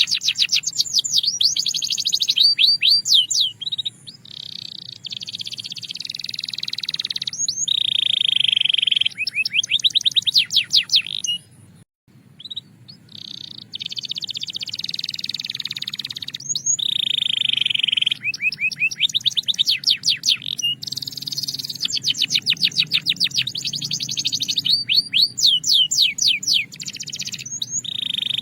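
Domestic canary singing a continuous song of rapid repeated-note trills and sustained rolls. The song breaks off for a moment about twelve seconds in, then resumes.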